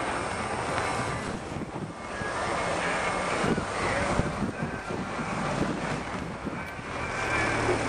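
An engine running in the background, its level rising and falling.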